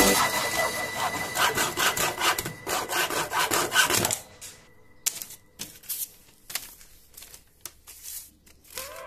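Hand hacksaw cutting through a leather-backed strip of bamboo in quick back-and-forth strokes for about four seconds. After the sawing stops there are a few light clicks and taps.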